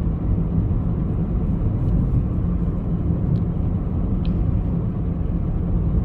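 Steady low rumble of a car on the move, road and engine noise heard from inside the cabin.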